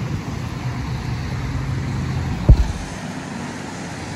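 Road traffic: a car engine's low hum with tyre noise as vehicles go by on a wet road, easing off about halfway through. A single sharp thump about two and a half seconds in.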